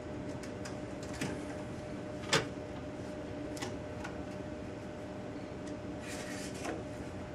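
Wilson Rockwell hardness tester pressing its indenter into an AR-15 rifle barrel during a Rockwell C hardness test: a few sharp mechanical clicks, the loudest about two seconds in, over a steady hum, with a short rustling noise near the end.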